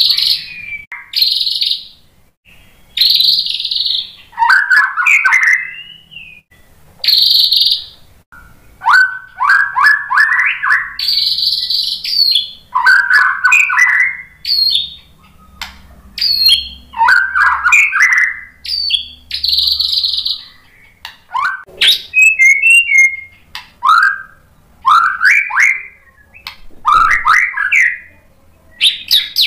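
White-rumped shama (murai batu) in full song, running through a varied string of loud phrases. Short harsh chattering bursts alternate with quick runs of rising whistled notes, with brief pauses between.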